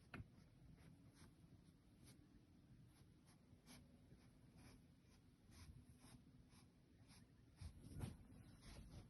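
Faint, irregular soft scratching strokes, about one or two a second, with a couple of louder dull thumps near the end.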